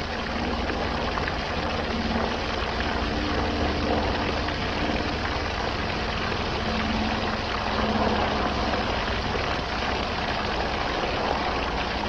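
Water gushing steadily from a garden hose and splashing onto the ground, with a faint low hum beneath it.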